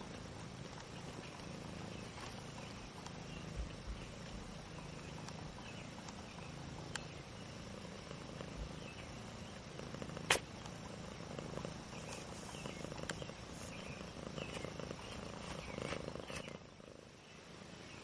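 Cat purring steadily and low, with occasional light clicks and one sharp click about ten seconds in; the sound drops quieter near the end.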